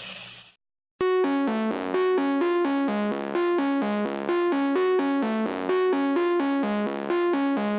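Running tap water fades out in the first half second, then after a short silence background music starts: a synthesizer or electric-piano arpeggio of quick, evenly spaced notes repeating in a loop.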